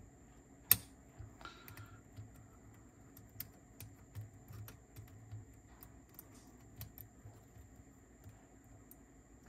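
Small clicks and ticks as a spring is fitted into a Sony TCM-200 cassette tape transport mechanism with pliers: one sharp click under a second in, then scattered light ticks.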